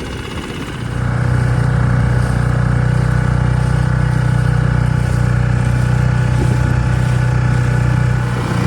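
Dinghy's outboard motor running steadily under way, coming up in level about a second in and easing slightly near the end.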